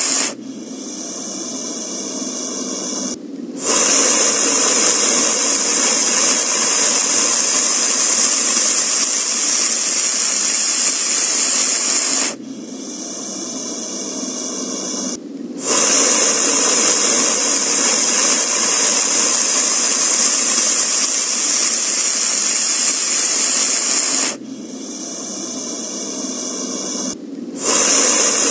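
Snake hissing: a loud, long hiss lasting about eight seconds at a time, broken by quieter gaps of about three seconds just after the start, near the middle and near the end, repeating at even spacing.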